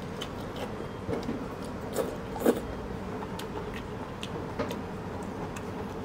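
A man eating noodles in broth: wet mouth sounds of slurping and chewing, with short sharp clicks scattered through, the loudest about two and a half seconds in, over a steady low background hum.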